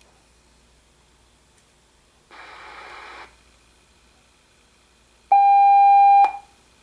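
Icom IC-R8500 scanning receiver in FM mode: a one-second burst of hiss as it stops briefly on a signal, then a loud steady received tone lasting about a second, cut off with a click. A faint steady high whine runs underneath.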